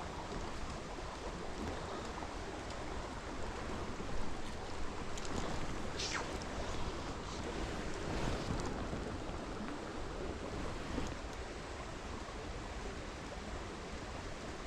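Steady rush of flowing stream water, with a few faint clicks and splashes.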